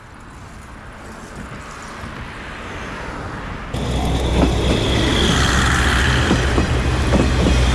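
A soft rush of passing-air noise builds for a few seconds. About four seconds in it gives way to a diesel railcar train passing close by: a steady low engine drone with the rapid clatter of its wheels over the rail joints.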